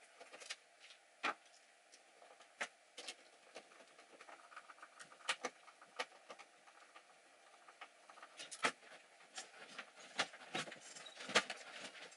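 Handling noise from reassembling a tube guitar amp head: irregular knocks and clicks, one every second or so, with light scraping and rattling as the chassis, cabinet and power cord are worked into place.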